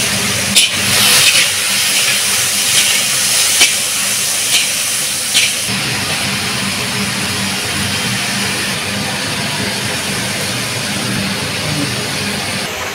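Cubed potatoes sizzling in hot oil in a large iron kadai over a hissing gas burner, a steady rush of sound. A few sharp clinks of a metal spatula against the pan come in the first half.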